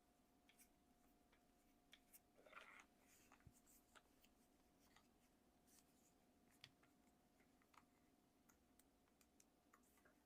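Near silence with faint, scattered small clicks and handling noises from a camera being fitted to its grip, and a short rustle about two and a half seconds in.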